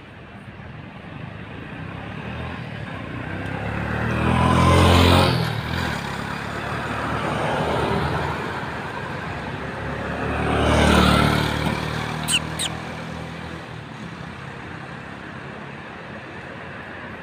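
Two motor vehicles pass by one after the other, each swelling and fading over a few seconds, the first about five seconds in and the second about eleven seconds in. Two short, sharp high clicks come just after the second pass.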